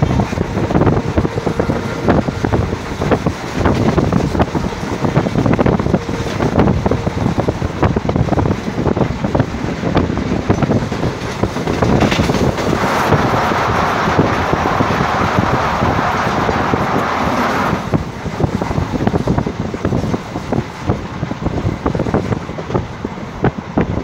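Running noise of a moving express passenger train, heard from on board: the rumble and rattle of wheels on the track. About thirteen seconds in, a louder rushing noise comes in and lasts about five seconds before cutting off.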